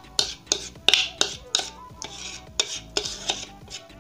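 A metal spoon scraping thick cake batter off the inside of a steel mixing bowl: repeated short scrapes and clinks, about three a second.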